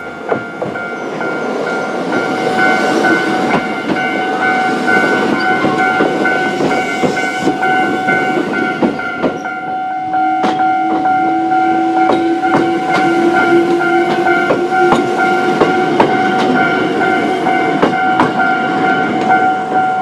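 A Japanese level-crossing warning bell rings steadily in a repeating electronic ding while a Choshi Electric Railway train passes over the crossing, its wheels clicking irregularly over the rail joints. The rumble builds over the first couple of seconds and stays loud.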